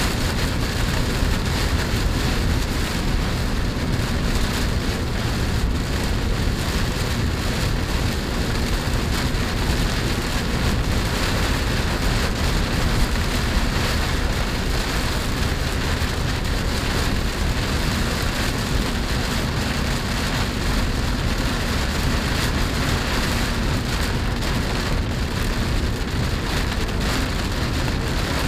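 Rain falling on a moving Chevrolet Spark, heard inside the cabin as a steady, even hiss with a faint low road and engine hum underneath.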